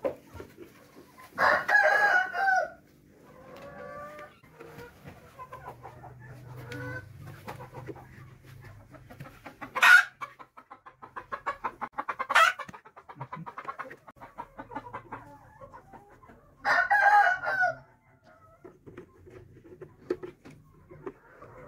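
A flock of desi chickens in a hen house: a rooster crows about a second and a half in and again near the end, and hens cluck throughout. Two sharp knocks come near the middle.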